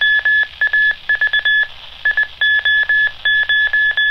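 Morse code identification from a 70 cm amateur radio repeater, heard through the Chierda TC18 handheld's speaker: a steady high beeping tone keyed into quick dots and dashes, with a brief pause about two seconds in.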